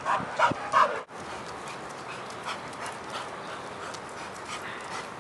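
A playing dog making short whimpering sounds for about the first second, cut off suddenly. Then a steady hiss with faint, evenly spaced soft ticks.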